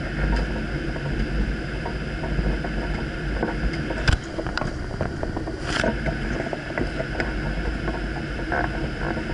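Steady airliner cockpit noise on final approach: a low rumble of airflow and engines. A couple of sharp clicks stand out, the strongest about four seconds in.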